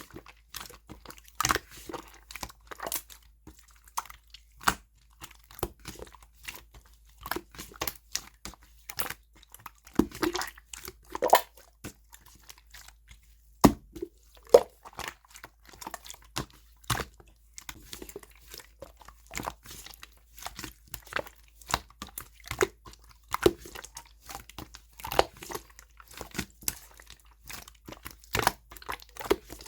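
Yellow slime being squished and stretched by hand, giving irregular sticky pops and crackles, a few each second.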